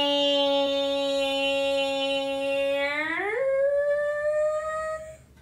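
A woman's voice imitating an airplane: one long droning tone that glides down and holds a low, steady pitch, then rises about three seconds in to a higher held note and stops near the end.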